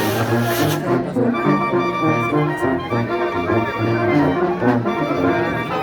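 Brass band music: trumpets and trombones playing a tune over a low, stepping bass line. A high hiss stops a little under a second in.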